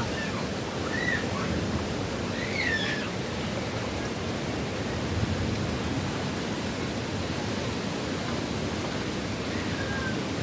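Steady roar of storm wind and rain as a hurricane builds, with a few short high chirps about a second and about three seconds in.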